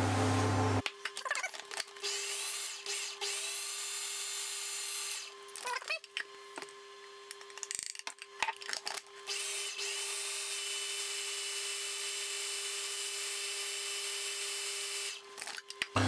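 Electric food processor motor running, mixing cake batter: a steady whine with a hiss above it. It starts just under a second in, drops in level for a few seconds with a few clicks around the middle, then runs steadily again and stops shortly before the end.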